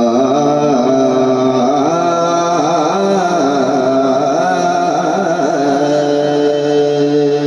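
A man singing a long wordless melisma in naat style, holding notes and bending them in slow ornaments before settling on a long steady note, with a steady low tone beneath.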